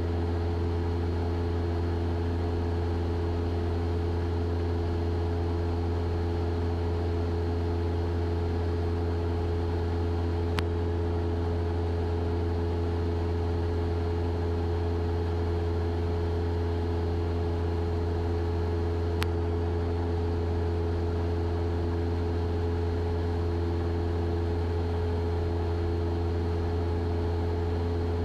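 Cessna 172's piston engine and propeller droning steadily in flight, with an even low hum and a few steady higher tones. Two faint clicks come about ten and nineteen seconds in.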